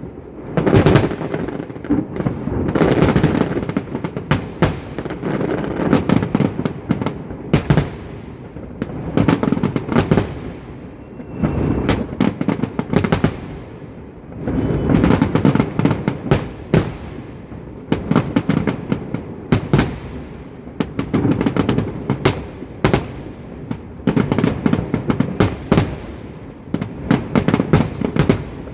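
Holiday fireworks salute: volleys of shells bursting in clusters of sharp bangs and crackling, a new cluster every two to three seconds.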